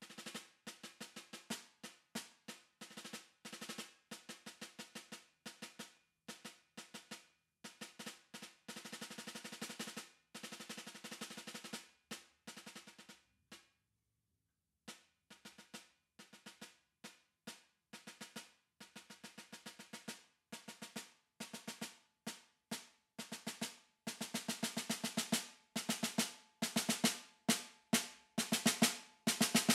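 Concert snare drum played with wooden sticks, snares on: quick, soft strokes and rolls, a pause of about a second halfway through, then a crescendo growing louder over the last few seconds.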